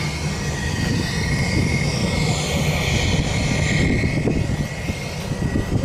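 Aircraft engines running: a steady high whine over a broad rush that swells in the middle and eases near the end. Wind buffets the microphone with a low rumble.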